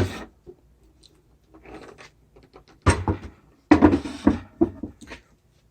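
Wooden dresser drawer being handled: a few sharp knocks and clatters of wood on wood, bunched about three to five seconds in, with faint rubbing before them.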